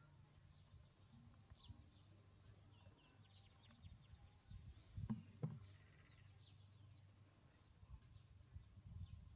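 Near silence with faint, short, high chirps scattered throughout, and two soft knocks about five seconds in.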